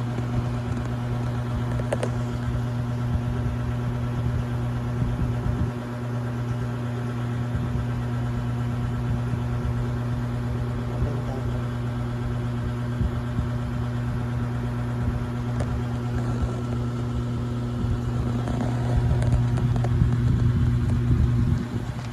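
A steady low mechanical hum with a constant pitch, a few faint clicks, growing louder near the end and dropping off suddenly just before the end.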